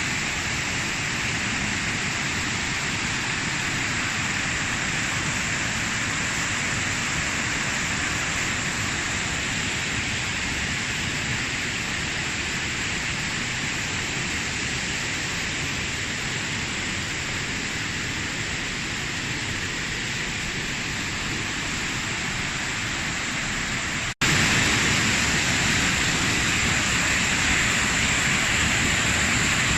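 Waterfall: a steady rush of falling water. It drops out for a split second about four-fifths of the way through, then comes back slightly louder.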